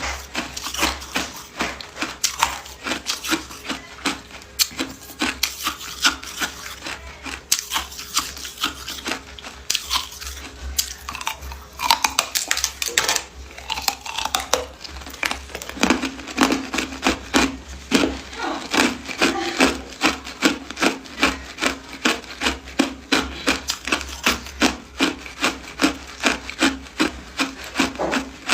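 Ice being crunched between the teeth close to the microphone: a dense run of sharp, brittle crunches that settles into a steady chewing rhythm in the second half.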